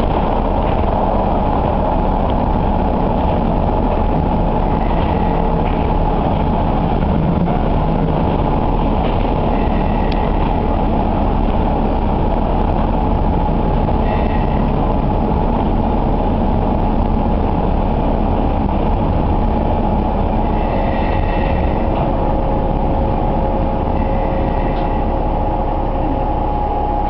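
Nagaragawa Railway diesel railcar running, heard from inside the car: steady engine and wheel-on-rail noise with a steady whine. A second, lower whine joins in about two-thirds of the way through, and brief high squeaks come five times. The car is drawing into a small station near the end.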